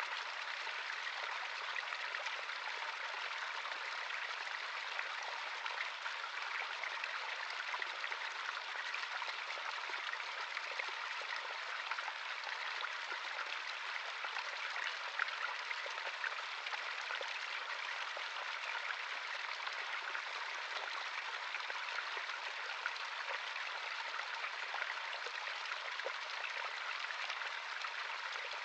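Natural running stream: a steady rush of water with small splashes and trickles over it, unchanging throughout.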